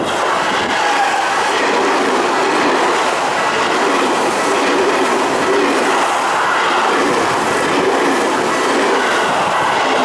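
Seibu 6000 series electric train passing close by at speed: steady loud running noise of wheels on rail, with clatter over the rail joints. A level-crossing bell rings faintly beneath it.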